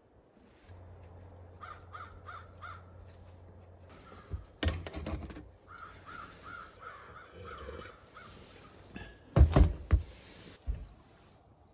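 A crow cawing in two quick series of short, repeated calls. Loud sudden knocks come about halfway through and again about three-quarters through, and a low steady hum runs through the first third.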